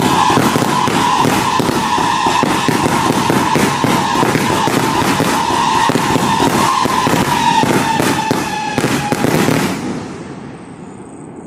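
Wolf Whistle to Salute fireworks cake firing: a steady shrill whistle over a rapid, dense run of cracking bangs, the whistle dipping slightly in pitch near the end. The firing stops about ten seconds in and the sound dies away.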